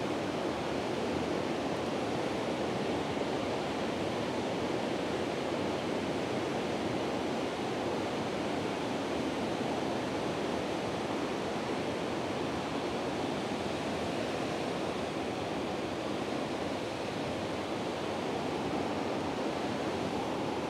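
Water pouring over a river weir: a steady, unbroken rush of falling water.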